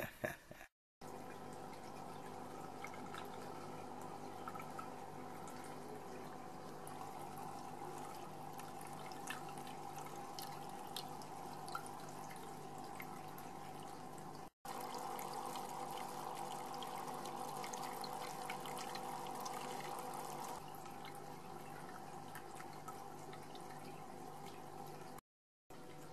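Aquarium water bubbling and trickling with small drip-like ticks, over a steady pump hum. The sound cuts out briefly a few times and is a little louder in the middle stretch.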